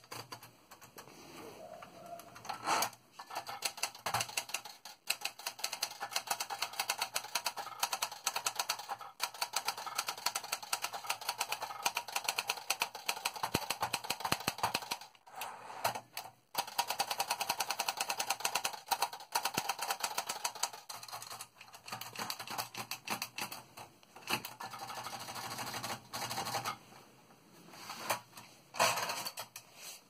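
1962 Olympia Splendid 33 portable typewriter being typed on: fast runs of key and typebar clacks against the platen, broken by short pauses.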